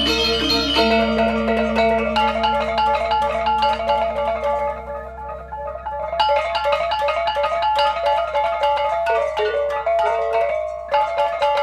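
Gamelan music: metallophones struck with mallets in fast, interlocking melodic patterns over a steady low hum, with brighter high notes coming in about six seconds in.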